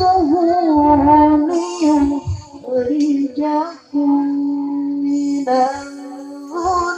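A male qari reciting the Quran in the melodic tilawah style into a microphone: ornamented phrases that waver and slide in pitch, with a brief breath about four seconds in and then one long steady held note.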